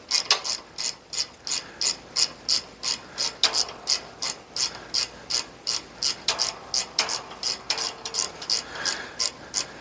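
Hand socket ratchet clicking steadily, about four clicks a second, as it is swung back and forth running a bolt into a pinsetter's turret mounting.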